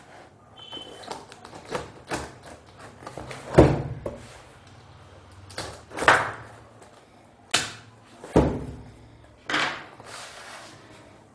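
Long cardboard shipping box wrapped in packing tape being cut open with a knife and handled: a string of separate knocks and scrapes of blade and hands on cardboard and tape.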